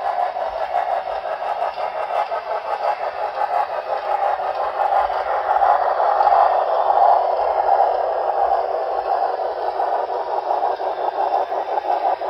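HO-scale model passenger cars rolling along the track: a steady clattering rumble of metal wheels on rail, loudest about halfway through as the cars pass closest.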